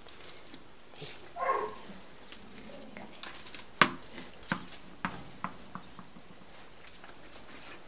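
A dog's claws clicking and tapping on a concrete floor as it walks and sniffs about. About a second and a half in comes a short whimper that falls in pitch.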